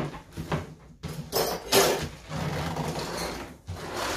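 Gift wrapping paper being torn open and crumpled: a couple of sharp rips about a second and a half in, then longer rustling of the paper.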